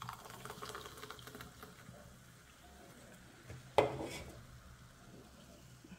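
Light crackle of carbonated orangeade fizzing in a glass while glassware is handled, with one sharp knock of a glass set down on the table a little past halfway.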